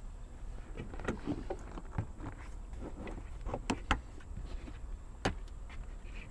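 A pleated paper air filter and its plastic airbox housing being handled and fitted together by hand: scattered light clicks and knocks of plastic, a few of them sharper.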